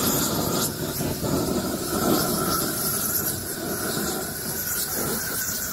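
Handheld propane torch running with a steady hissing blast, its flame held into a pile of lump charcoal to light it.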